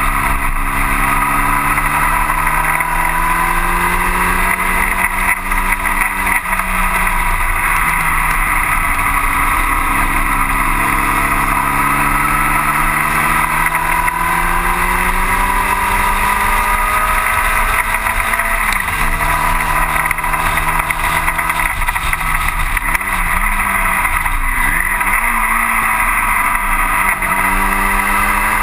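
A 1960 Cooper T-52 Formula Junior's engine at racing speed, heard from on board: the revs climb, drop sharply on gear changes about six seconds in and again around nineteen, dip and waver with downshifts around twenty-four, then climb again near the end. Loud wind rush on the microphone runs under it.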